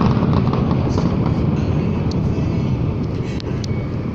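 Fireworks rumbling in the distance, a dense low rumble that slowly dies away, with a few faint crackles or pops in the second half.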